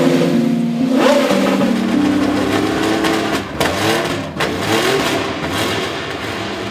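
Porsche racing engine revving in repeated throttle blips, its pitch sweeping up each time, with a few sharp cracks partway through.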